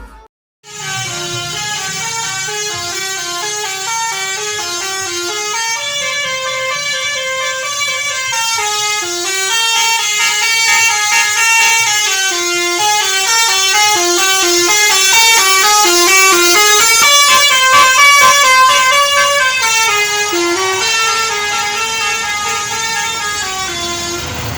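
Indonesian tour bus musical air horns (basuri, 'telolet') playing a fast tune of short, stepped notes, several horn tones sounding together. They start about half a second in and grow louder through the middle.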